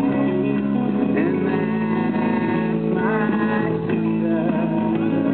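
Music with a guitar playing steady held chords.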